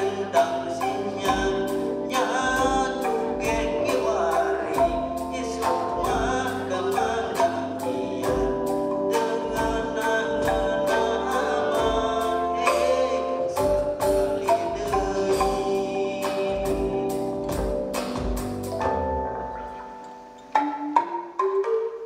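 Live ensemble music: a calung renteng, a string of Sundanese bamboo tubes struck with mallets, plays a tuned, marimba-like pattern over bass guitar and a steady drum beat, with a singing voice. The music thins out briefly near the end, then the strikes pick up again.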